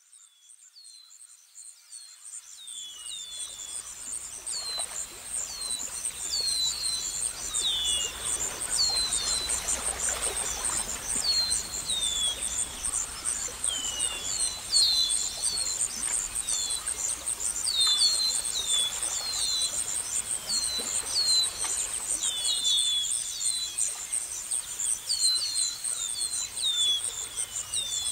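Outdoor nature ambience: insects trilling in a steady, high, fast-pulsing chorus, with a bird repeating short, quick falling chirps over it. A soft background hiss fades in over the first few seconds.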